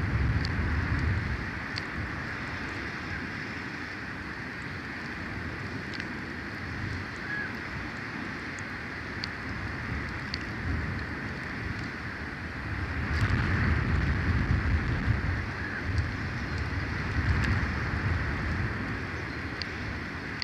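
Wind blowing over an outdoor nest-cam microphone high in a pine tree: a steady hiss with low rumbling gusts, strongest at the start and again in the second half. A few faint, brief high ticks sound now and then.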